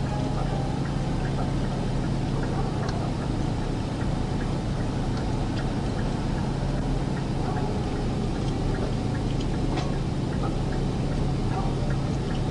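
Steady low hum of a vehicle running, heard from inside the car, with scattered light clicks.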